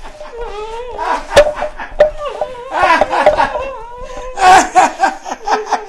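A man laughing: a high-pitched cackle in repeated bursts, with one sharp click about a second and a half in.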